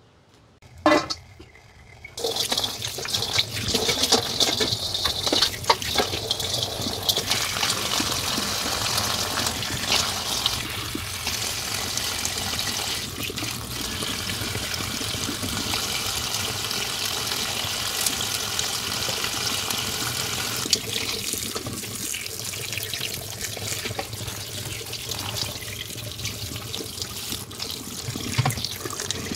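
Tap water running steadily onto salad greens in a stainless steel colander, starting about two seconds in, with small splashes and clicks as the leaves are handled. A short sharp sound comes about a second in, before the water starts.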